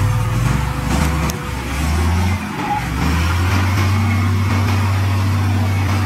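Heavy diesel engine of earthmoving equipment running under changing load, its pitch shifting up and down for the first two seconds or so, then settling into a steady run.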